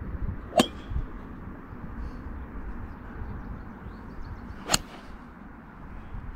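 Two crisp clicks of golf irons striking balls off a range mat, about four seconds apart, the second one near the end being the louder.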